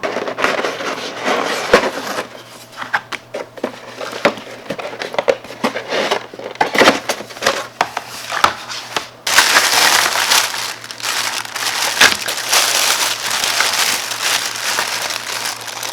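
Packaging crinkling and crackling as items are handled and unwrapped, with scattered clicks at first and a denser, continuous stretch of crinkling from about nine seconds in.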